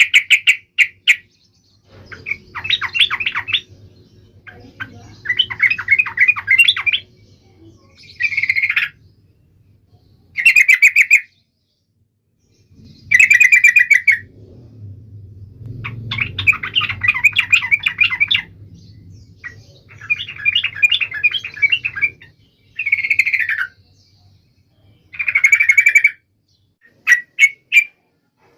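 Yellow-vented bulbul (trucukan) singing: short phrases of rapid chattering notes, each about a second long, repeated every second or two. A faint low hum sits under some of the phrases.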